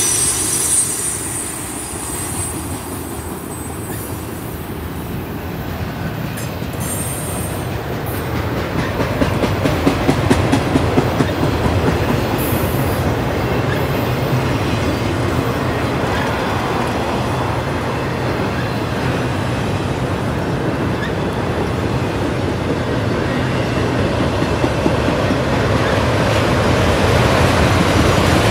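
Multi-level autorack freight cars rolling past on the track: a steady rumble and clatter of steel wheels on rail. A high wheel squeal fades out about a second in.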